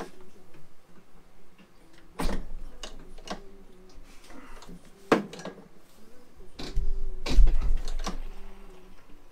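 Scattered knocks and clunks from a Vespa scooter's metal body and fittings being handled, about one every second, with a heavier thud about seven seconds in. The engine is not running.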